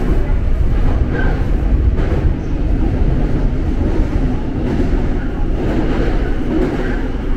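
Seoul Subway Line 8 train running through a tunnel, heard from inside the car: a steady, loud low rumble of wheels on rail and traction motors.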